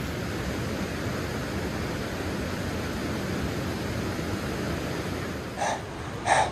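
Steady rushing of river water below a dam. Near the end come two short scuffs about a second apart, footsteps on concrete steps.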